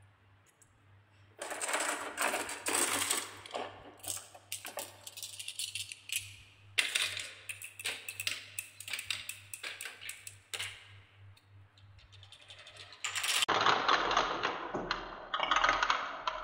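Glass marbles on a HABA wooden marble run: rapid, irregular clicking as they knock against each other and the wooden track while being pushed along a rail. Near the end they circle a wooden spiral with a louder, continuous rolling rattle.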